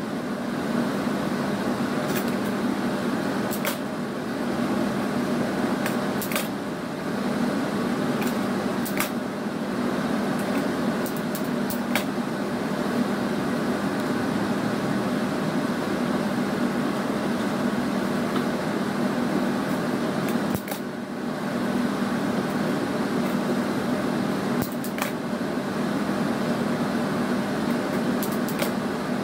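A steady low mechanical hum, with scattered light clicks and snaps from stems and scissors being handled.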